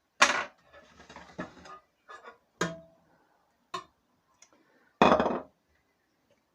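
Knife knocks and kitchen clatter from cutting a banana into pieces: a handful of sharp strokes at uneven intervals, the loudest near the start and about five seconds in.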